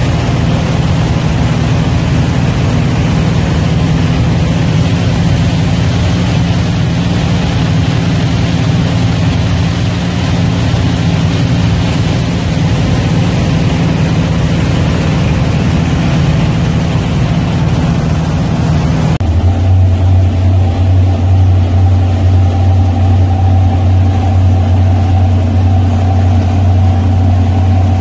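Twin gasoline inboard engines of a 1978 Carver 28 cabin cruiser running under way, with the rush of wake and wind over them. About two-thirds of the way through, the sound changes abruptly: the rushing drops away and a lower, pulsing engine note takes over as the boat comes down from speed.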